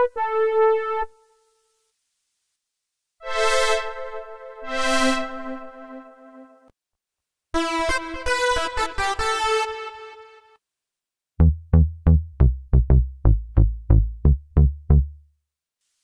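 Roland Juno-60 software synthesizer (Roland Cloud emulation) playing short preset demo phrases with pauses between them. A held phrase comes first, then a busier lead line about halfway, then a quick run of about a dozen short, low staccato notes near the end.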